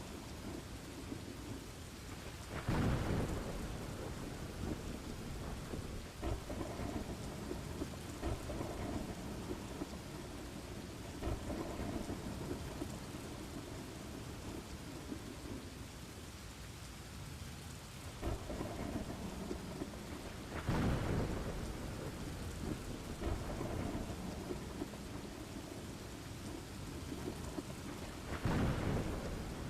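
Steady rain with thunder rolling: three louder rumbles swell up, about three seconds in, about twenty-one seconds in, and near the end.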